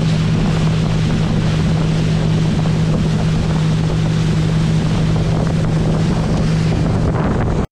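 A boat's outboard motor running steadily under way, a low even drone under heavy wind buffeting the microphone and rushing water. It cuts off abruptly near the end.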